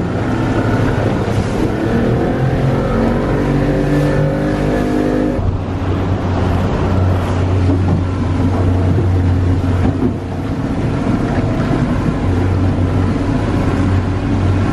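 Boat engine running under way, with water and wind noise: its note rises slowly over the first five seconds, then changes abruptly to a steadier low drone.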